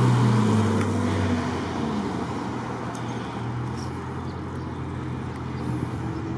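Road traffic: passing SUVs with engine and tyre noise, loudest at the start and easing off as they drive away.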